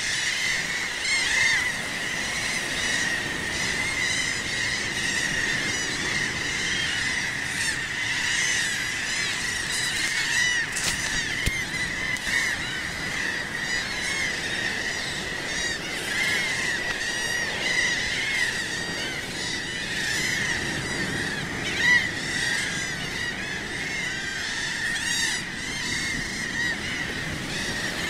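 A seabird colony: many birds calling at once in a continuous, overlapping chorus of short, shrill, rising-and-falling calls.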